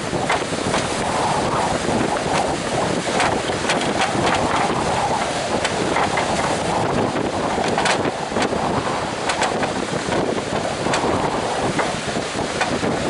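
Strong wind buffeting the microphone over the steady rush of surf, with frequent sharp crackles.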